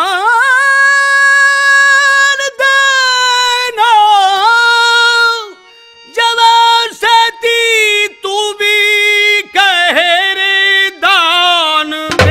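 A man singing long, high held notes in nautanki folk-theatre style, his voice wavering with vibrato and no drums beneath it. He pauses briefly for breath about halfway through, then the phrases come shorter, with quick gaps between them.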